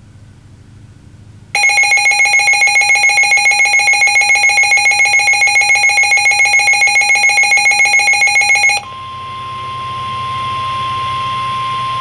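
Midland NOAA weather alert radio sounding its electronic alert alarm for a severe thunderstorm warning: a loud, rapid pulsing beep, about six pulses a second, lasting about seven seconds. It then changes to the broadcast's steady single-pitch warning alarm tone, which grows louder before the spoken warning starts.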